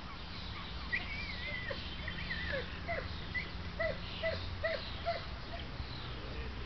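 German Shepherd dog barking in a quick, even series of about three barks a second, starting a little over a third of the way in and stopping about three-quarters through: the bark-and-hold at a protection helper standing at a hide.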